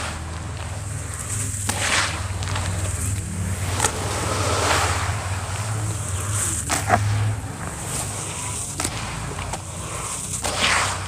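Handfuls of wet sand squeezed and dropped back into a bucket of water, crumbling with irregular wet, gritty splats and crunches, over a low steady hum.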